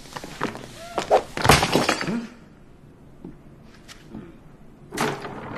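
Crashing, breaking sounds: a clatter of knocks and cracks in the first two seconds, a quiet stretch, then another sharp crash near the end.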